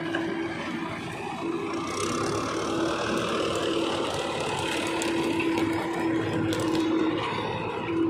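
Diesel engines of a Manitou backhoe loader and a Mahindra tractor running, the backhoe working its arm as it empties its bucket into the tractor's trolley and folds back. A steady hum with a tone that drops out a few times, and a few light knocks past the middle.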